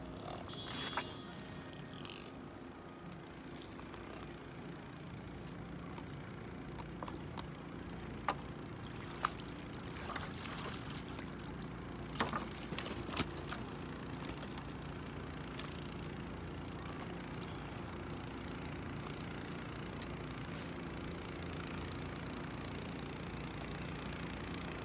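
Steady low drone of a boat engine running, with a few sharp knocks and clatters about eight to thirteen seconds in.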